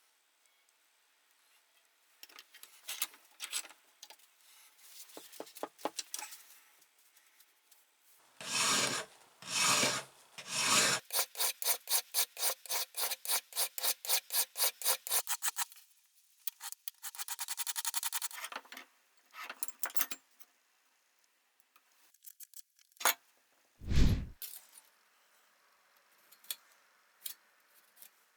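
A hand tool rasping back and forth on a vise jaw. Three slow strokes come first, then a quick run of about four strokes a second and a shorter run, with a single heavy thump near the end.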